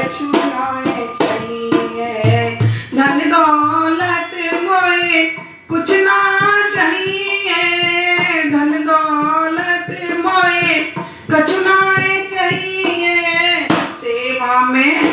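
A woman singing a Hindi devotional bhajan, accompanying herself with steady strokes on a dholak, a two-headed barrel drum.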